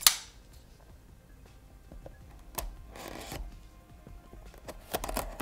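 A folding knife's blade flicks open with one sharp click. The blade then slits the plastic shrink wrap on a cardboard box, with a few light clicks and a brief rustle. Faint background music plays underneath.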